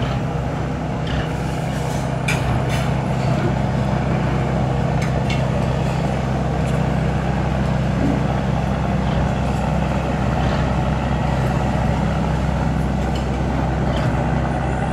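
A boat's engine running steadily: a low, even drone. A few faint ticks and clacks sit over it in the first few seconds.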